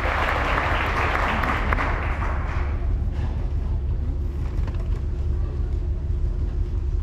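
Audience applause and crowd noise dying away about two and a half seconds in, leaving a steady low rumble.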